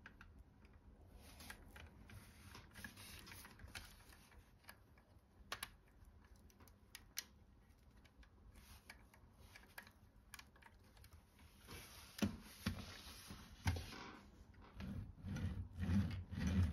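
Plastic clicks and rattles of a LEGO brick model being handled and turned over in the hands. Near the end come louder low knocks as the model is set on the tabletop and pushed along on its rubber tyres.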